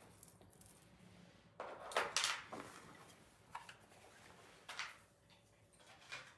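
Faint handling noise of small objects being moved and set down on a table: a few short knocks and rustles, the loudest cluster about two seconds in.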